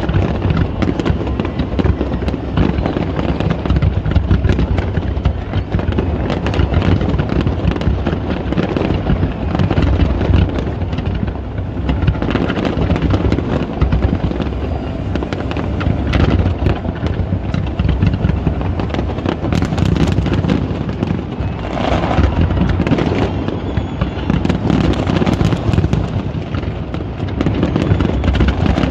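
Large fireworks display: a dense, unbroken barrage of booming and crackling shell bursts.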